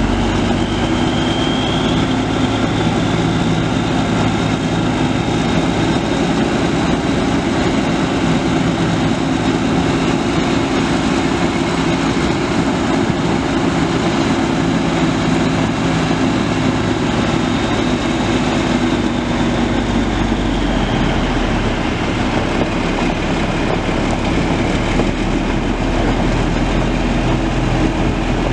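Cummins ISX15 turbo diesel of a 2013 Peterbilt 389 semi truck running at raised engine speed for about twenty seconds, with a high whine above it. It then drops back to a steady idle.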